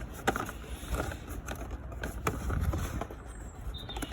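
Packaging of new ignition coil packs being handled and opened: scattered small clicks and crinkles.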